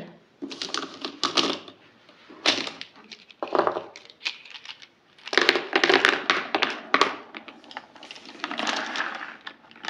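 Plastic Maped felt-tip markers clicking and clattering against one another and the paper as a handful is scooped up and laid back down, in several spells of quick clicks and rattles.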